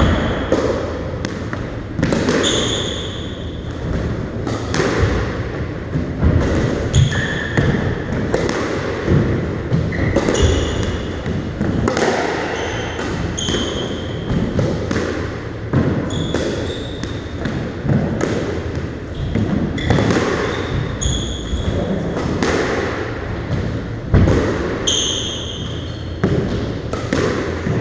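Squash rally: the ball cracks off rackets and the court walls in sharp strikes about once a second, with short high squeaks of court shoes on the wooden floor between them, all echoing in the enclosed court.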